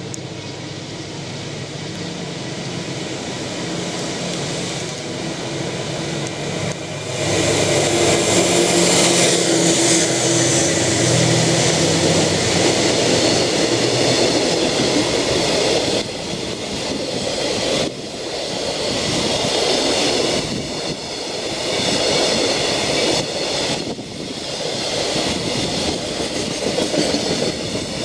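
JR Freight DF200 diesel-electric locomotive running through a station at speed with a high-speed container freight train. Its engine hum grows louder as it approaches and becomes much louder about seven seconds in as it passes. The rumble and wheel clatter of the container wagons follows, with short dips in loudness as each wagon goes by.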